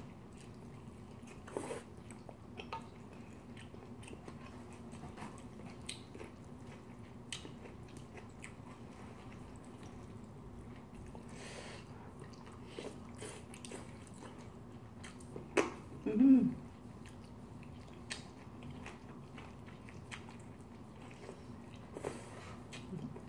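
Close-up eating sounds: a mouthful of seafood curry rice being chewed, with scattered soft clicks of a wooden spoon. About sixteen seconds in there is a brief, louder hum of the voice.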